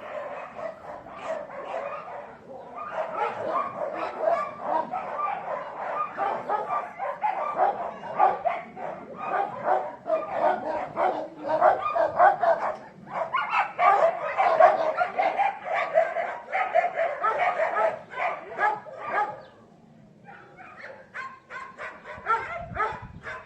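Dog barking and yipping in rapid, continuous runs, breaking off briefly near the end before starting up again.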